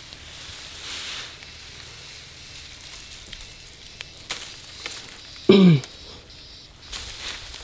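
Crackling, rustling noise of dry vegetation being moved or walked through, with a few light clicks. About five and a half seconds in there is one short, loud call or grunt that falls in pitch.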